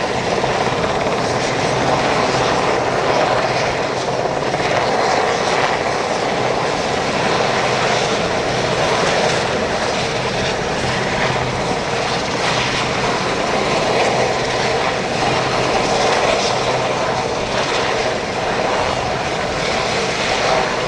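Helicopter running steadily: a dense, even rotor and turbine noise with a low hum underneath, unchanging throughout.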